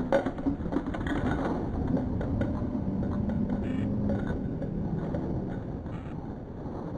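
Small model rocket engine burning, heard as a slowed-down, low drawn-out rumble with a few sharp cracks in the first second, slowly fading.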